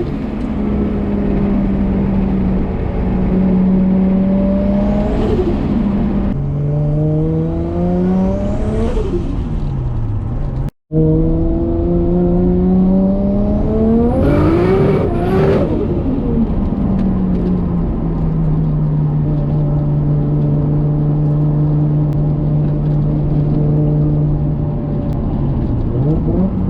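Built RB25DET turbocharged straight-six of a Nissan Skyline R33 pulling hard several times: the engine pitch climbs with a high whine rising over it, then falls away and settles to a steady cruise. The sound cuts out for an instant about eleven seconds in.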